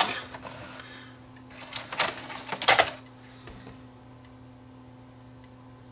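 Pioneer PDM703 multi-disc CD changer's loading mechanism working: a short clatter of clicks, whirs and knocks from about one and a half to three seconds in. It is followed only by a steady low hum, with no disc spin-up, because the changer has a faulty optical pickup.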